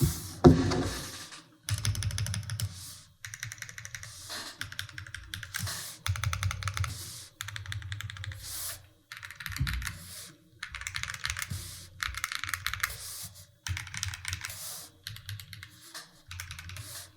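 Typing on a DIY 65% mechanical keyboard with G-square 白武士 v2 switches and white keycaps: rapid key clacks in runs of a second or two, with short pauses between. A single louder knock comes about half a second in.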